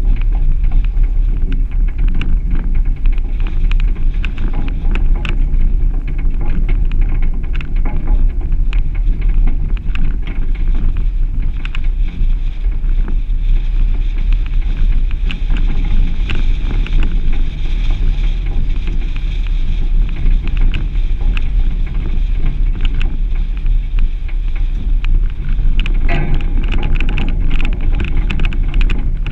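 Suzuki Grand Vitara driving along a rough grassy green lane: a steady low rumble from the engine and tyres, with wind buffeting the microphone and frequent small knocks and clicks from the rutted track.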